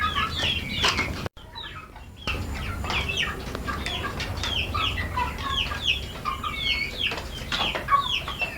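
A flock of chickens calling, many short high chirps and clucks overlapping one another, with a brief break in the sound about a second in.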